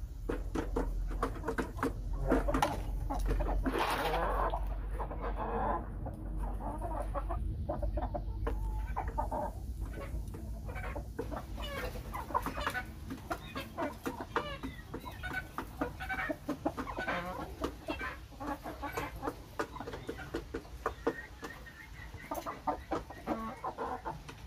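Chickens clucking: a gamecock rooster and hens giving many short clucks, loudest in the first few seconds.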